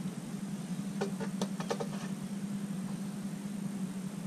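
Wire cutters snipping off wire ends: a quick run of about five sharp clicks a second in, over a steady low hum.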